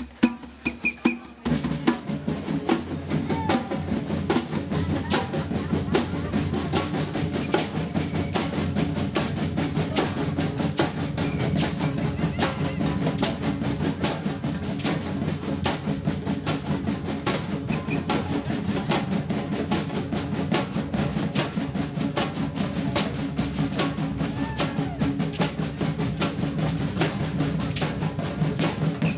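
Percussion band playing drums with a steady, driving beat. After a few separate hits, the full band comes in about a second and a half in.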